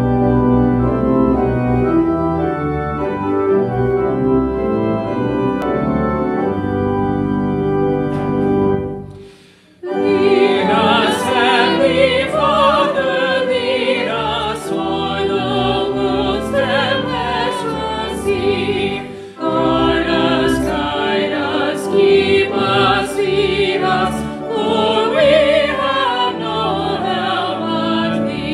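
Church organ plays sustained hymn chords, stopping briefly about nine seconds in; then a small group of men and women sings the hymn's first verse with the organ accompanying.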